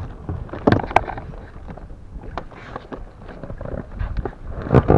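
Irregular clicks and knocks from an angler's spinning rod and reel being handled and cranked while fighting a hooked fish, with two louder short bursts, about a second in and near the end.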